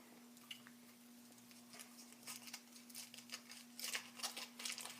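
Faint crinkling and rustling of a foil wrapper being peeled off a Yowie chocolate figure, picking up from about two seconds in and busier near the end, over a faint steady hum.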